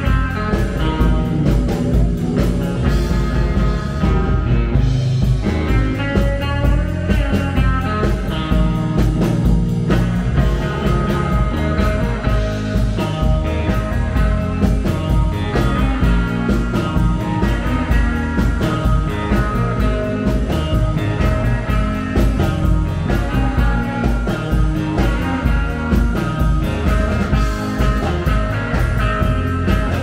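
Live rock band playing a song with a steady driving beat.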